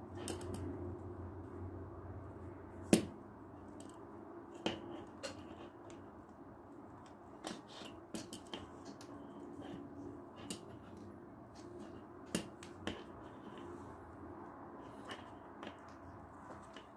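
Hand saddle stitching thick leather: needles passed through the stitching holes and waxed thread drawn tight, with scattered sharp clicks and taps, the loudest about three seconds in.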